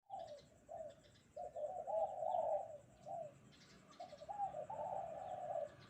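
Spotted dove (derkuku) cooing its 'kuk-kuk' song in two phrases of low, bending coos, each a few notes long with a short pause between. Faint chirps of small birds sound higher up behind it.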